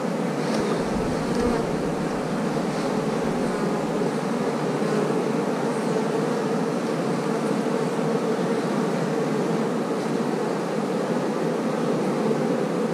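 Honeybees buzzing in a steady, even hum around an opened nucleus hive as a frame crowded with bees is lifted out. The colony is very calm.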